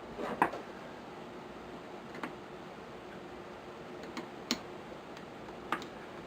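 About five light, sharp clicks and taps a second or so apart, the loudest a little past halfway, from hand tools and small metal parts as the screws of a Savage Model 64 rifle are tightened during reassembly.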